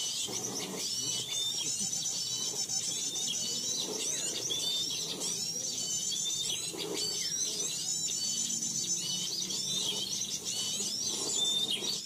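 Dense, unbroken chatter of many small birds, quick high chirps and twittering trills overlapping.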